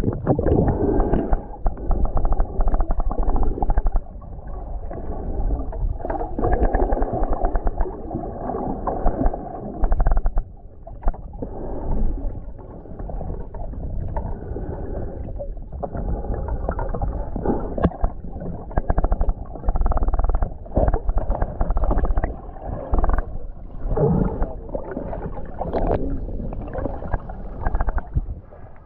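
Muffled sloshing and gurgling of water around a swimmer, coming in uneven surges, with the dull, bottom-heavy sound of a microphone that is wet or under the water.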